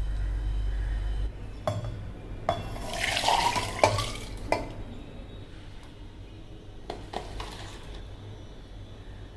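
Metal kitchen utensils knocking and scraping against a pan, with a stretch of stirring or liquid sound about three seconds in, followed by a few scattered clinks.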